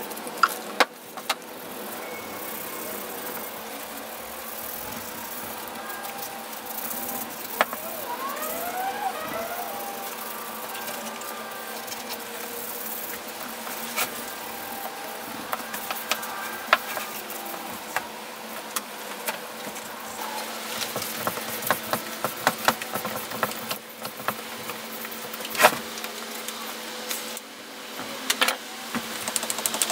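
A rag rubbing and wiping the aluminium housing of a vintage belt sander, with scattered sharp clicks and knocks as the tool is handled, over a steady hum.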